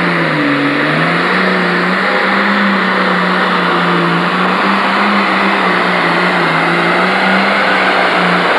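Turbocharged engine of an International 1066 pro stock pulling tractor at full throttle as it pulls the sled. The pitch sags briefly about half a second in as the load bites, then holds steady.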